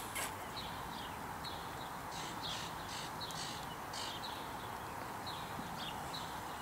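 Small birds chirping in short, high, repeated calls over a faint, steady outdoor hum.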